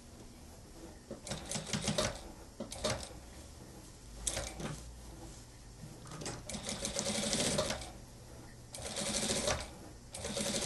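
Industrial single-needle sewing machine stitching a shirt seam in stop-and-go runs: several short bursts, the longest near the middle lasting about a second and a half, with pauses between them.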